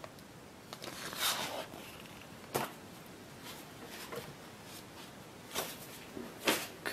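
Paper inserts and plastic wrapping being handled and set down on a wooden table: a few brief rustles and light taps, about five in all, with low room noise between them.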